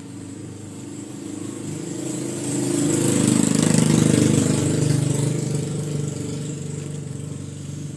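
A motor vehicle's engine running, growing louder to a peak about halfway through and then fading.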